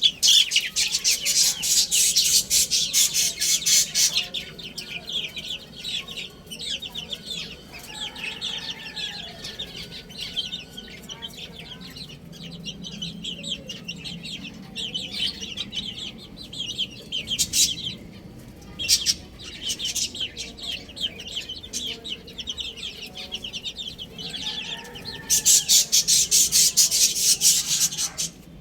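Many baby chicks peeping rapidly and continuously, loudest for the first four seconds and again near the end, with a few lower clucks mixed in.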